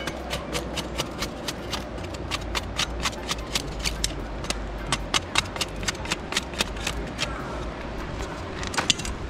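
A knife blade repeatedly chopping into a stick of dry wood to split it into kindling, a steady run of sharp knocks about three or four a second that briefly thins out near the end.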